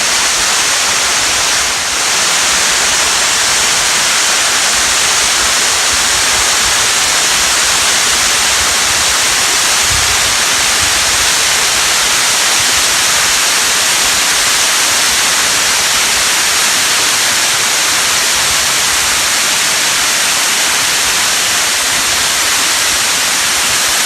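Rocky Brook Falls pouring into its plunge pool: a loud, steady rush of falling water. There is a brief low rumble about ten seconds in.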